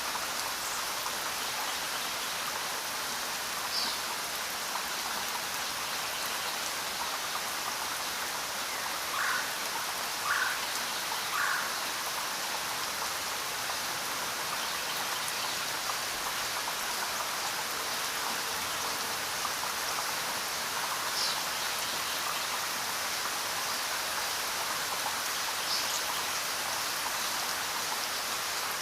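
Steady rainfall, an even hiss of rain with a few louder drops standing out, three in a row about a second apart near the middle.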